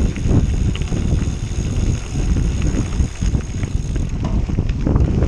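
Wind rumbling on a handlebar-mounted action camera's microphone while a gravel bike rolls over a gravel road, its tyres crunching and the bike rattling in a steady patter of small ticks.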